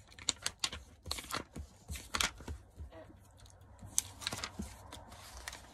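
Handling of small cosmetic sample packaging: irregular crinkling, rustling and sharp little clicks.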